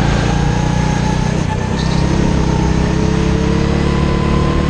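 A RiMO go-kart's small engine running at speed, heard from on board, its pitch climbing gradually as the kart accelerates.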